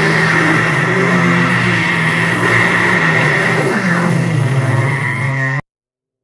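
Loud, dense droning noise with a low hum that steps down in pitch about four seconds in and a steady high tone over it, cut off abruptly about five and a half seconds in.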